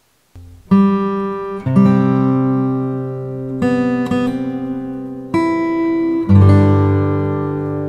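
Acoustic guitar music starting about half a second in: chords struck every one to two seconds and left to ring.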